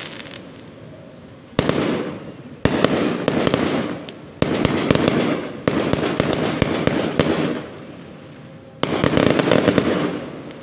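Aerial fireworks bursting overhead: five sharp bangs, each followed by dense crackling that fades over a second or two.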